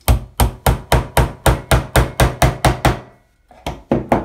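Small hammer tapping pins into a plywood deck plate and keel: a quick run of about a dozen sharp taps, about four a second, then a brief pause and three more taps near the end. The pins are being driven in a line across the keel to pull the deck plates down flush.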